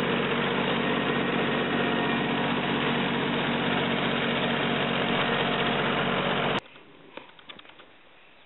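Small tractor engine running steadily while pulling a hay tedder, cutting off abruptly a little after six seconds; faint scattered clicks follow.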